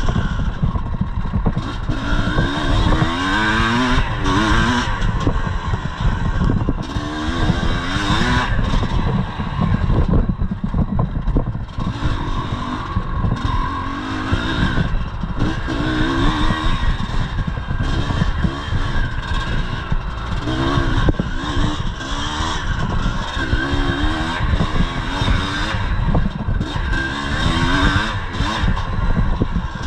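1983 Yamaha IT 250's two-stroke single-cylinder engine revving up and down again and again under hard riding over rough trail, heard close from the rider's chest.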